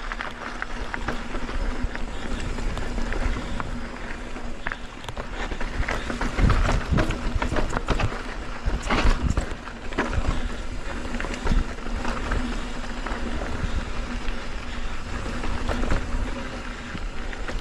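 Mountain bike ridden over a rough dirt-and-rock trail: steady wind rumble on the microphone, tyres on the ground, and the bike rattling and knocking over bumps, hardest about six to seven and nine seconds in.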